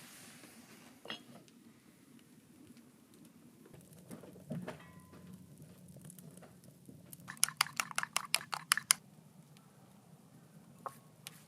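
Kitchen utensils clinking against cookware: a few scattered knocks, then a quick run of about a dozen sharp clicks in the middle.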